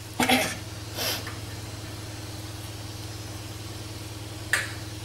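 A fork and spoon scrape and clink against a nonstick pan while cooked biryani rice is tossed with the masala. There are three short scrapes, about a third of a second in, about a second in, and near the end, over a steady low hum.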